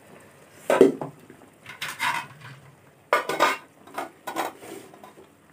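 Metal kitchenware being handled: aluminium pots, lids and steel plates clanking together on a counter. There is a loud knock about a second in, a ringing clink near two seconds, and a run of clatters around three to four and a half seconds.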